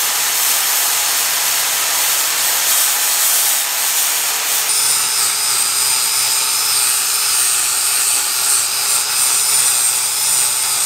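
Electric angle grinder with a sanding disc grinding into a fibreglass boat hull, a steady, loud whine and hiss as osmosis blisters are ground back to solid glass. Partway through the sound shifts, with a higher steady whine on top.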